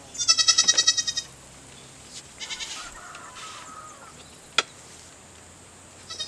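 An animal's loud, wavering call about a second long at the start, pulsing many times a second, then a softer call a little later, a single sharp click, and another wavering call beginning near the end.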